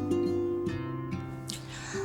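Background music of gently plucked acoustic guitar notes, with a brief hiss near the end.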